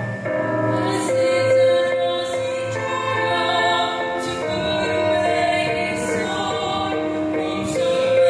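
Mixed vocal quartet, two male and two female voices, singing in harmony through handheld microphones, with long held notes.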